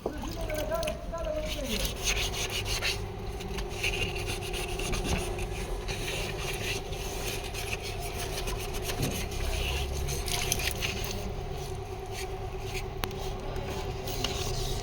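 Repeated rubbing and scraping strokes on car bodywork, as in sanding during bumper and dent repair, over a steady machine hum that starts about two seconds in.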